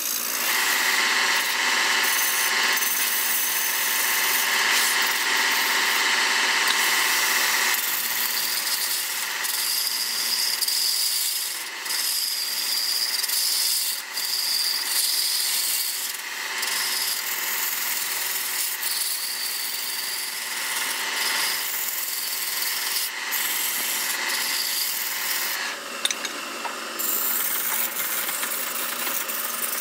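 Hand-held turning tool cutting a large wooden workpiece spinning on a lathe: a steady scraping hiss with a high ringing tone that shifts higher about eight seconds in, dipping briefly a few times.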